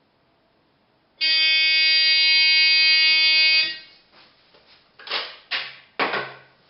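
A converted rotary phone rings once with a steady electronic buzzing tone lasting about two and a half seconds. About five seconds in, there are a few short knocks and rustles as its handset is lifted off the cradle.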